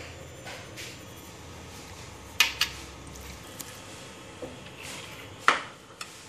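A bowl of raw chicken pieces being handled while the chicken is mixed with salt by hand. Two quick clinks come about two and a half seconds in and a louder knock near the end, with soft handling noise in between.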